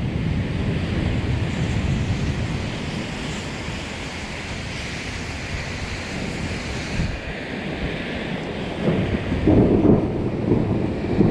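Thunderstorm outdoors: a low rumble of thunder dies away over the first few seconds, leaving a steady hiss of wind. From about nine seconds in, gusts of wind buffet the microphone.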